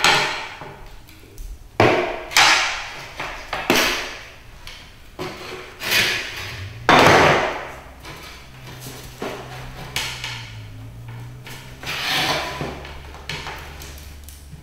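Wooden chair knocking and creaking as its legs and frame are tugged and wrenched by hand: a string of irregular knocks against the floor and wood, the loudest a heavy clatter about seven seconds in.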